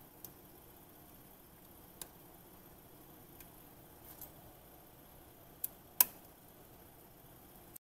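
Small sharp clicks and ticks from a flat ribbon printhead cable being pressed into its connector on a printer main board and the connector's lock being worked, about half a dozen in all, the sharpest about six seconds in. The sound cuts off to dead silence just before the end.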